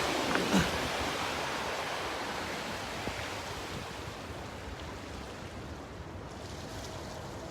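Sea waves washing on the shore: one surge swells near the start and slowly fades away, with a brief knock about half a second in.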